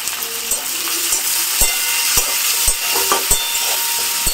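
Chopped onion sizzling in hot oil in a kadai as it is stirred, with about five sharp knocks against the pan.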